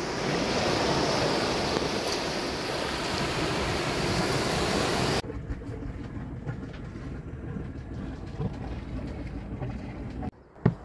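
Rushing noise of water and wind aboard a sailing yacht under way. About five seconds in it cuts off abruptly to a quieter, lower rumble with a few light knocks, and there is one sharp click near the end.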